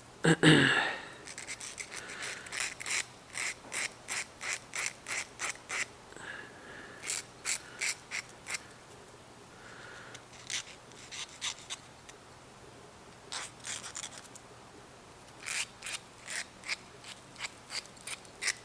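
Hand file rasping across the tip of a homemade lock pick in short runs of quick strokes, about two a second, with pauses between the runs, flattening the pick's hook to change its angle. A brief louder thump comes just at the start.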